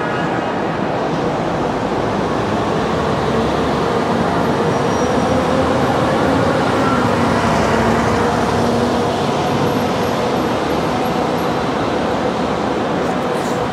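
Disneyland tram, a tractor unit towing a string of open passenger cars, rolling past at low speed: a steady running and tyre rumble under a parking-structure roof, a little louder as the tractor goes by about six seconds in.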